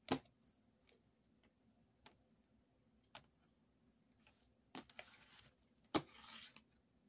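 Cards being handled and laid out on a wooden tabletop: a few light taps as cards are set down, the sharpest right at the start, and short sliding rustles about five seconds in and again near the end.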